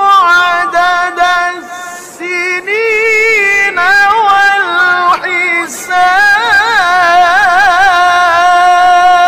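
A male Qur'an reciter chanting in the melodic mujawwad (tilawah) style, drawing out a long, ornamented melisma with fast quavering trills in a high register. About six seconds in he climbs to a higher pitch and holds it there.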